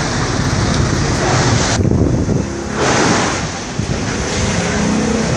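Gusty wind buffeting the microphone, swelling and easing in gusts with a brief lull about two seconds in.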